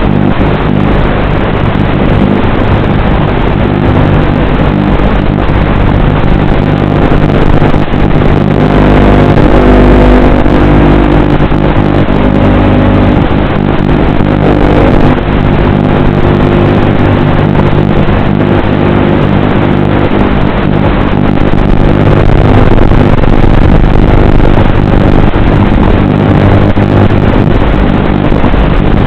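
Electric motors and propellers of a small FPV drone whirring in a steady, loud drone, its pitch shifting slightly with throttle.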